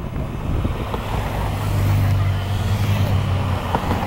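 A car passing close by, its engine hum swelling to a peak about two seconds in and then easing off.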